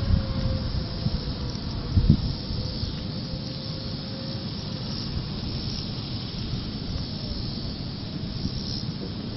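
Wind rushing over the microphone, with a gust thumping it about two seconds in, and a distant tornado warning siren whose single tone slides slowly lower and fades out about halfway through.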